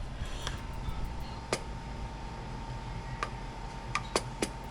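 Scattered light clicks and taps, about six in a few seconds, of the electrical cover plate and its parts being handled and fitted back onto an InSinkerator Badger 1XL garbage disposal, over a faint steady hum.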